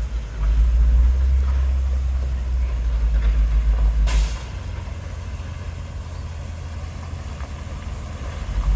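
Heavy construction machine engine running with a deep rumble. About four seconds in there is a short hiss, and the engine then settles to a lower, quieter run.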